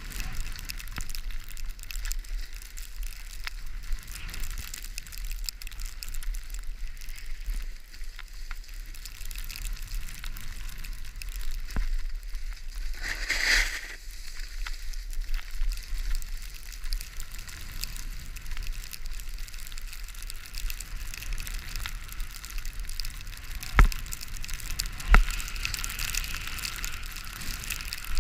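Skis sliding and scraping over snow and ice, a steady hiss with crackle, while wind buffets the microphone with a low rumble. The hiss swells briefly about halfway through, and two sharp knocks come near the end.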